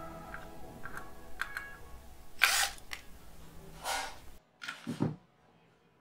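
Handling noises from a disassembled hard drive and a cordless drill-driver being set aside: a few short rustling clatters, the loudest about two and a half seconds in, then two more near four and five seconds.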